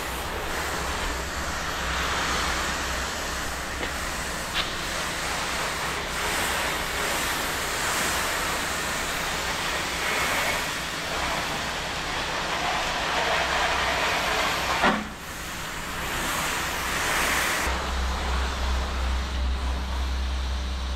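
Soft-wash spray gun shooting a steady hissing stream of cleaning solution onto vinyl siding to treat lichen. The spray breaks off briefly about two-thirds of the way through, then resumes. A low engine or pump drone runs underneath and grows louder near the end.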